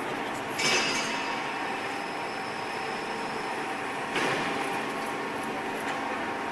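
Steady hum of the H-beam drilling line's machinery, broken twice, about half a second in and about four seconds in, by a sharp metallic clank with a short ring of steel striking steel on the line.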